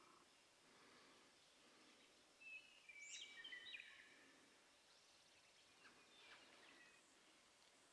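Faint songbird calls: a short run of high whistled notes with one quick upward sweep about two and a half seconds in, then a few fainter calls later on, over a soft background hiss.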